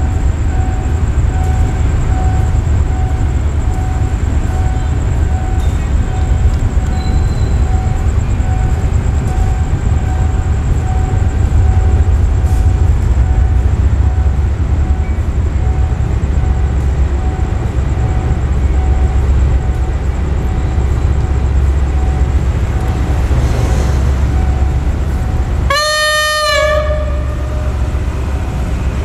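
State Railway of Thailand GE 'GEA' class diesel-electric locomotive (CM22-7i) idling with a steady low rumble and a faint high whine. About 26 seconds in, its air horn sounds one blast of about a second, a single note that sags as it ends.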